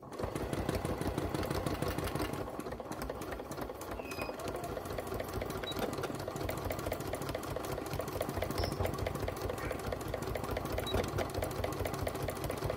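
Elna Excellence 720 Pro sewing machine stitching a seam through layered cotton fabric at a steady speed. It starts suddenly and runs as a fast, even patter of needle strokes.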